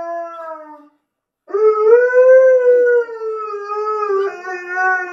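Siberian husky howling: one howl fades out just under a second in, then after a short pause a second long howl rises a little and slowly falls, stepping down in pitch about four seconds in.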